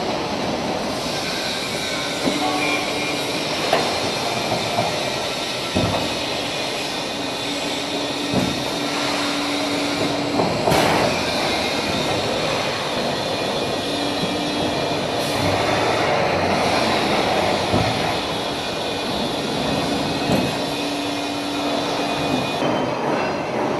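CNC hydraulic folding machine running: a steady mechanical drone with scattered metallic knocks, and a low hum that comes in twice for about eight seconds each.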